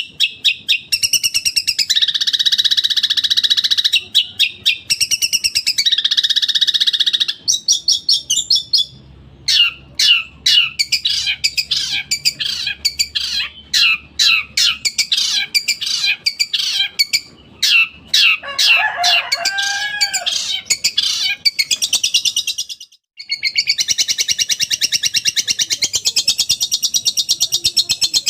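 Long-tailed shrike singing a loud, fast song of trills and rapid rattling runs of repeated notes, mimicking other birds such as the house sparrow. There is a short break about 23 seconds in.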